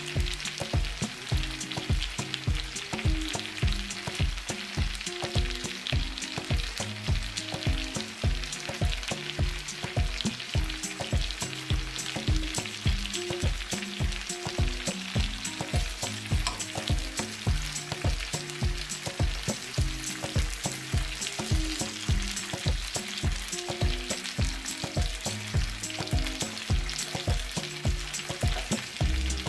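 Chicken drumsticks sizzling steadily as they brown in oil and butter in a frying pan on high heat. Background music with a steady beat plays over it.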